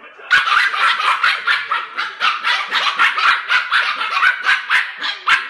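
Scottish Terrier puppies barking rapidly and without a break, about four sharp barks a second, starting a moment in.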